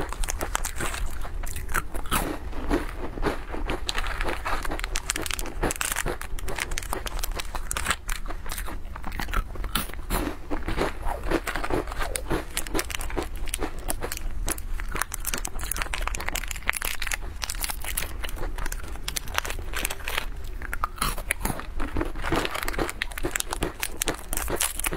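Plastic snack wrappers crinkling as they are torn open, mixed with the crunching and chewing of crisp biscuits, in a close, continuous crackle of quick clicks.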